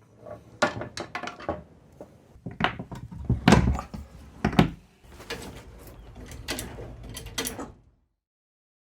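Workshop clatter: an irregular run of metal knocks, clanks and ratcheting clicks, like tools and car parts being handled. The loudest knocks come around the middle, and it stops about a second before the end.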